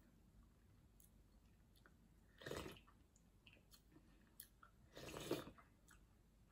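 Soft chewing and mouth sounds of a person eating a spoonful of sour curry with greens. Two short bursts come about two and a half and five seconds in, with a few faint clicks between them, over near silence.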